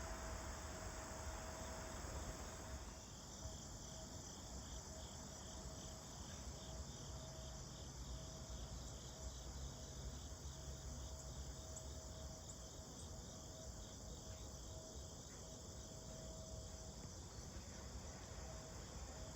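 Crickets chirping faintly in an even, pulsing rhythm, over a low rumble.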